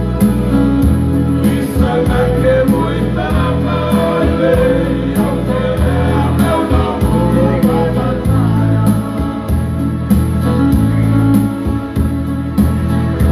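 A men's vocal group singing a Fijian song together into microphones, amplified through a PA, over electric keyboard backing with a steady beat.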